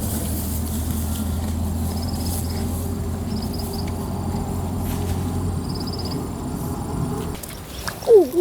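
A steady low engine hum that stops about seven seconds in, with faint insect trills above it, and a short cry falling in pitch near the end.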